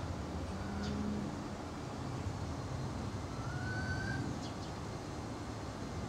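Outdoor ambience: a steady low rumble, with a few short high chirps and a brief slightly rising tone about three and a half seconds in.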